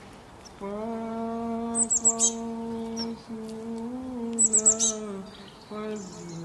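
A single voice singing an Islamic na'at in long, drawn-out held notes. Quick bursts of bird chirps come in twice, about two seconds in and again about four and a half seconds in.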